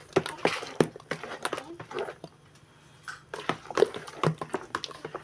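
A spoon stirring a thick starchy batter in a bowl, with irregular clicks and scrapes against the bowl and wet sloshing. The stirring pauses for about a second around the middle, then picks up again.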